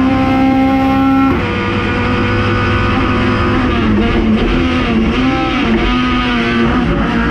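LADA 2101 race car's naturally aspirated 1.6-litre four-cylinder at high revs, heard from inside the cabin. It holds a steady pitch, breaks off briefly about a second in, then from about four seconds in its pitch rises and falls repeatedly as the driver works the throttle.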